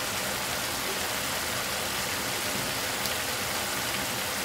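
Marinated sliced pork bulgogi sizzling and bubbling in two frying pans, a steady hiss as the soy-sauce and gochujang marinade liquid boils down.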